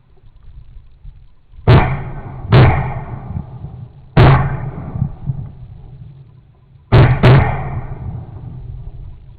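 Five shotgun shots fired at game: two about a second apart, a single shot a second and a half later, then a quick pair near the end, each ringing off afterwards.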